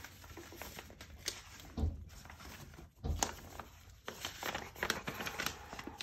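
Pages of a printed thermostat manual being leafed through by hand: paper rustling and flapping in short, irregular bursts, more frequent in the second half.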